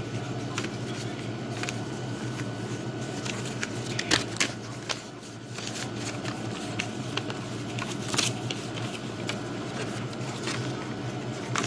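Paper and packaging being handled: intermittent rustling and crinkling with a few sharper crackles, over a steady low hum.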